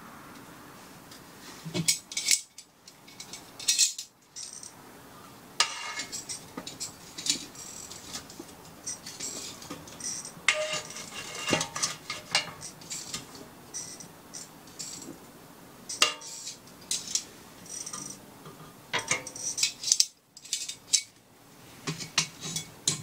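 Metal fire tongs clinking and scraping against a small steel wood stove's firebox as burning logs are rearranged: an irregular run of sharp metallic clinks and clanks.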